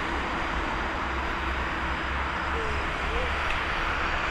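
Distant Airbus A321-231 jet engines, IAE V2500 turbofans, at takeoff power during the takeoff roll: a steady rushing noise.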